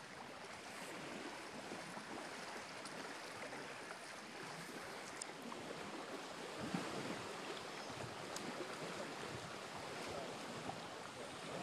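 Small lake waves lapping and washing against a concrete break wall and shoreline rocks, a steady wash, with a few faint clicks.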